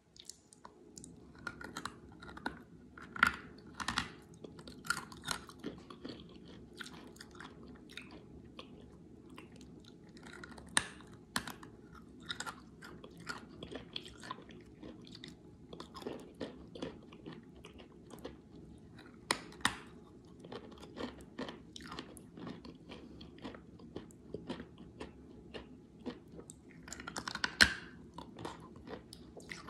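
Close-up chewing and crunching of a lump of wet clay: a run of short, sharp crunches and bites, with a loud bite about three seconds in and another near the end.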